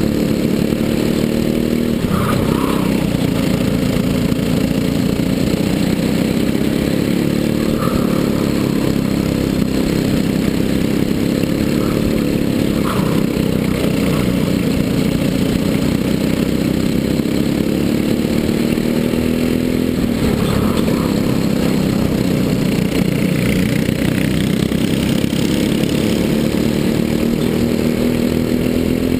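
Briggs & Stratton LO206 four-stroke single-cylinder kart engine at racing revs, heard onboard over the other karts' engines. Its pitch drops several times as it slows for corners and climbs again as it accelerates out.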